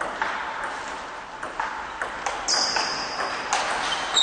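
Table tennis rally: the celluloid ball clicking off the paddles and the table in quick alternation, about two or three knocks a second. A brief high squeak lasts about a second, starting about two and a half seconds in.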